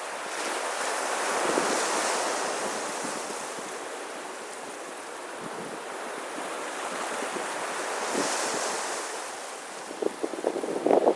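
Sea waves washing onto a beach, the surf swelling and easing twice, with sharper splashing as a wave breaks near the end.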